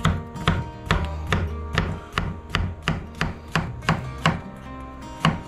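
Chef's knife slicing a yellow squash into rounds on a wooden cutting board: a steady run of knife strikes on the board, about three a second.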